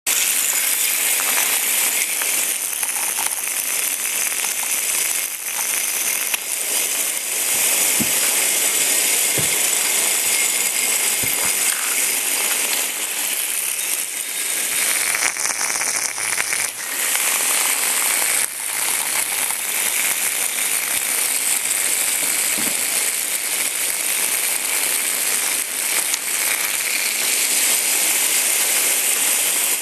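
Several Hexbug Bobble Bots, small vibration-motor toys, buzzing and rattling as they wobble across a hard floor: a dense, steady clatter of tiny ticks, with a few soft knocks now and then.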